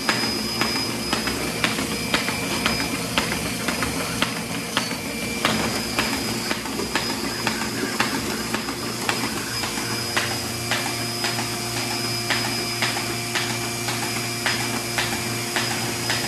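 Baum 714 air-feed paper folder running: a steady motor hum and air hiss, with a regular sharp click about two or three times a second as sheets are fed through and folded.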